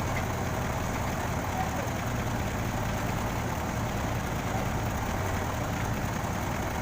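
Crane truck's engine idling steadily with a low, even hum.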